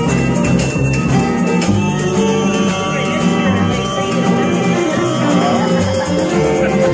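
Live acoustic band playing a Latin-flavoured tune: acoustic guitar and violin, with light hand percussion.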